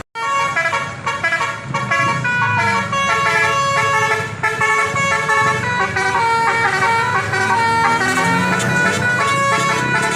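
Basuri telolet multi-tone bus horn playing a fast melody of stepped, overlapping tones, over a low engine rumble.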